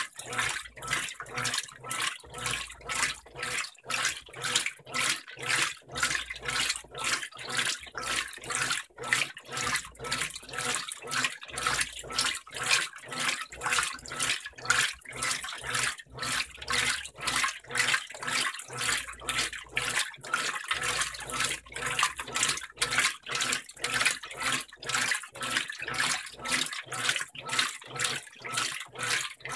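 Brastemp BWG12 top-load washing machine agitating a load of jeans in a full tub: water swishing and sloshing in regular surges, about two a second.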